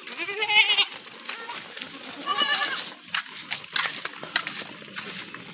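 Goats bleating: two quavering bleats about two seconds apart, over scattered short taps.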